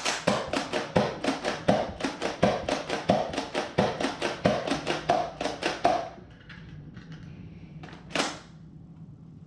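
Nerf Rival Takedown pump-action blaster being pumped and fired as fast as possible: a quick run of sharp plastic clacks, about three a second, which stops about six seconds in. Then quieter handling with a single clack near the end, as the two remaining foam balls are loaded.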